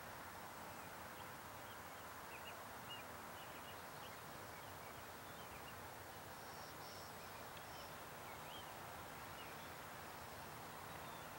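Faint outdoor ambience: a steady low hiss with scattered small high chirps throughout and a brief faint high buzz around the middle.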